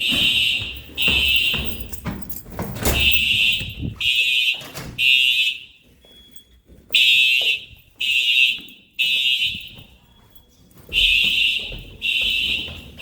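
Fire alarm horn sounding loud in the temporal-three evacuation pattern: three half-second blasts about a second apart, then a pause of about a second and a half, repeating. This is the building's evacuation signal after a pull station has been activated.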